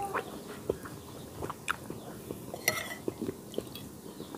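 A man eating chicken soup with a spoon: quiet chewing with scattered light clicks, and a metal spoon clinking against a plate a couple of times.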